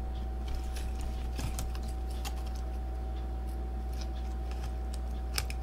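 Scattered light clicks and taps of small plastic camera parts being handled and fitted together, the sharpest near the end, over a steady low electrical hum and a faint steady tone.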